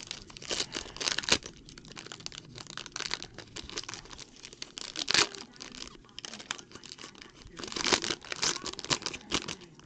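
Foil trading-card pack being crinkled and torn open by hand: irregular sharp crackles and rips, busiest about a second in, at about five seconds and near the end.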